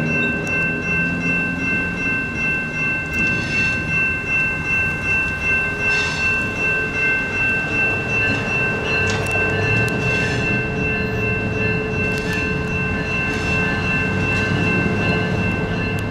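Railroad crossing warning bells ringing without a break at a pulsing steady pitch, over the low running of a train's diesel engine and a few sharp clicks.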